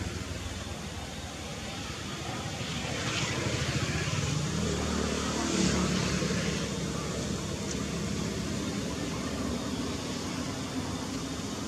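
A motor vehicle engine passing by over steady outdoor background noise, growing louder from about three seconds in, peaking around six seconds, then fading.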